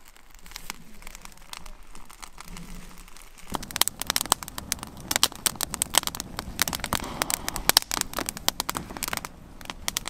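Campfire of dry twigs and sticks crackling, quiet at first while twigs are laid on, then dense and loud from about three and a half seconds in.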